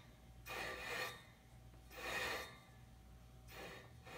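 Spinning spoked motorcycle wheel with something rubbing it once per turn: a rasping rub lasting about half a second that comes back roughly every second and a half, weaker near the end.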